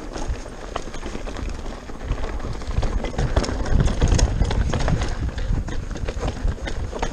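Pivot Mach 429 Trail mountain bike riding fast down a rocky dirt trail: tyres rumble over the ground and the bike rattles and clatters over stones and bumps, with wind buffeting the bike-mounted camera's microphone. The rumble grows louder from about halfway in as the bike picks up speed.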